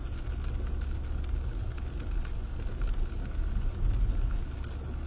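Steady low rumble of a car driving on a wet road, engine and road noise, heard from inside the cabin.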